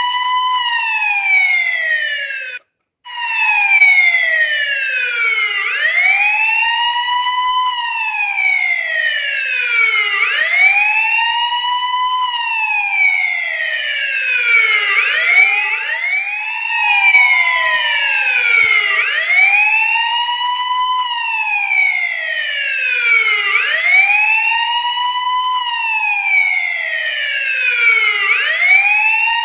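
Police siren sounding a wail: a loud tone sweeping slowly up and down in pitch, about every four to five seconds. It cuts out for a split second about three seconds in.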